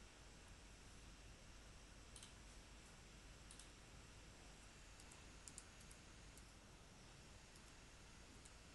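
Near silence with a scattering of faint clicks from a computer mouse and keyboard as a value is typed in.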